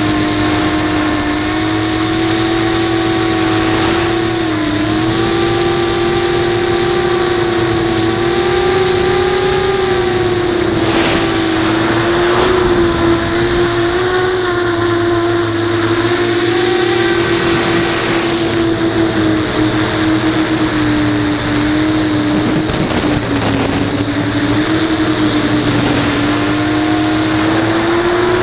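5-inch FPV quadcopter's brushless motors and propellers whining, heard from the onboard camera with wind noise; the pitch rises and falls with the throttle, dipping about four and a half seconds in and again near seventeen seconds.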